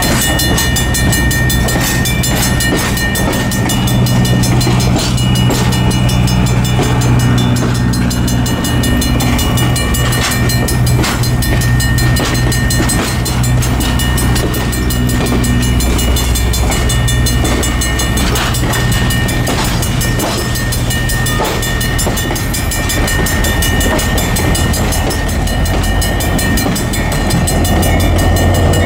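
Norfolk Southern GP40-2 diesel-electric locomotive, an EMD two-stroke V16, running loudly with a steady low engine drone as the train moves, with scattered clicks and knocks from the wheels and cars. The engine sound grows stronger near the end.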